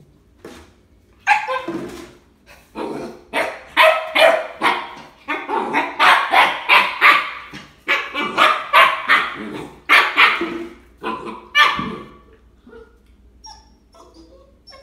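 Puppy barking over and over at a plastic jug, about two quick barks a second for some ten seconds, then stopping.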